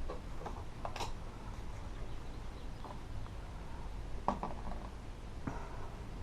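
Light clicks and taps of small parts and tools being handled on a workbench, with sharper ones about a second in and twice more in the second half, over a low steady hum.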